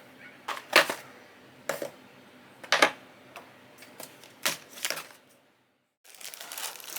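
Objects being handled: a series of separate sharp clicks and knocks at uneven intervals, then a short dead silence about five and a half seconds in, followed by a dense run of small clicks and crackles.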